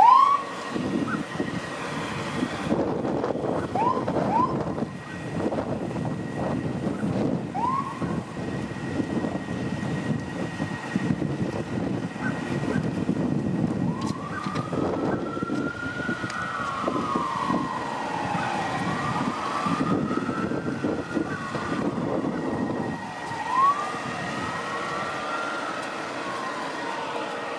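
Emergency vehicle siren: a few short rising whoops in the first several seconds, then from about halfway a wailing tone sweeping up and down, over steady vehicle and traffic noise.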